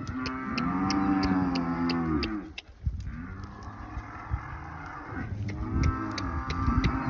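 Cattle mooing in long, drawn-out calls, one after another, with a new call starting near the end.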